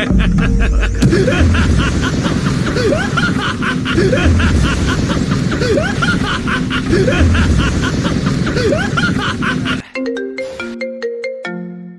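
Hip-hop/trap-style beat with heavy bass, fast hi-hats and a rising sweep about every second and a half. About ten seconds in it cuts to a sparse ringtone melody of short, plucked, marimba-like notes.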